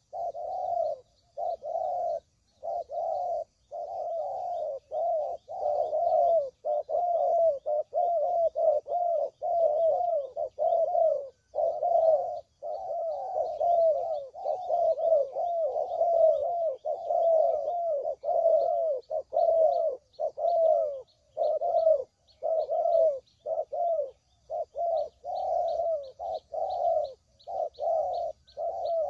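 Spotted doves (tekukur) cooing: repeated phrases in quick succession with short gaps between them, used as a lure call for trapping doves. Faint high chirps sound behind the cooing, with a fast, faint ticking series in the last few seconds.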